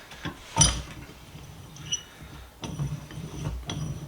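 Metal knocks and clinks from a heavily rusted bench vise being handled and worked on as it is taken apart: a sharp knock with a brief metallic ring about half a second in, then a run of rattling clicks in the second half.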